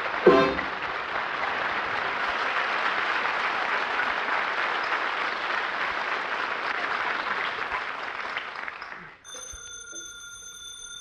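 Studio audience applauding, starting on the band's closing note and dying away about nine seconds in. A telephone bell sound effect then starts ringing near the end.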